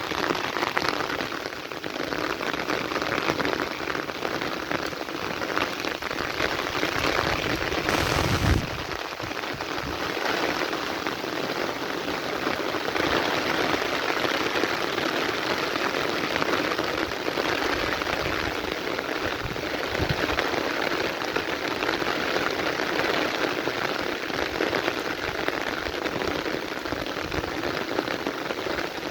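Heavy rain falling steadily in a dense, even hiss, with one brief sharp burst about eight seconds in.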